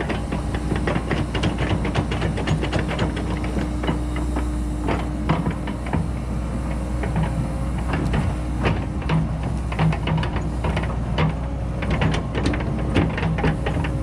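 Cat 314E excavator running while grading, a steady low engine hum and hydraulic tone with frequent sharp clicks and knocks over it.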